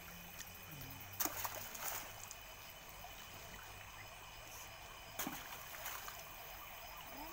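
Large plastic bag being handled: short crinkling rustles about a second in and again around five seconds, over a faint steady hiss.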